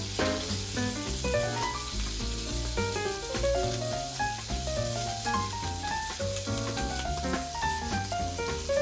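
Background music, a melody of short plucked-sounding notes over a repeating bass line, with a steady crackling hiss underneath.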